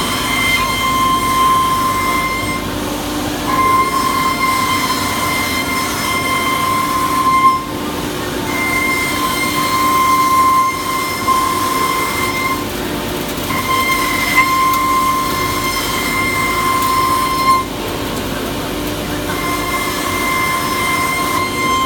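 FINECNC FC1325-12 ATC CNC router running: a steady low hum with a high whine over it, and the whine breaks off and starts again every two to three seconds.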